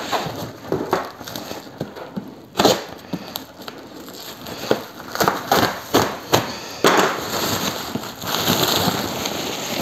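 Black plastic stretch wrap and packing tape being slit and torn off a cardboard box: irregular crackling and rustling, which becomes denser and steadier near the end as the film is peeled away.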